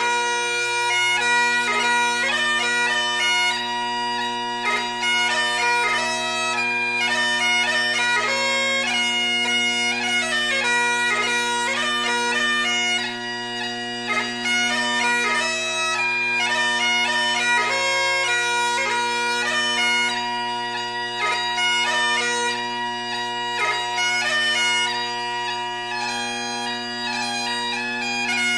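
Bagpipe music: steady drones held under a quick, ornamented chanter melody.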